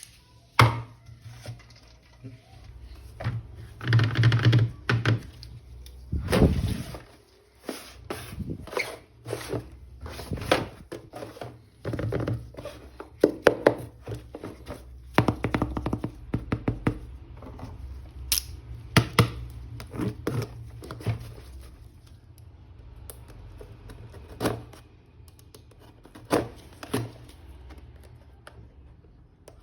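Plastic toy figures and packaging being handled: scattered clicks, taps and thunks, with two short rustling passages a few seconds in.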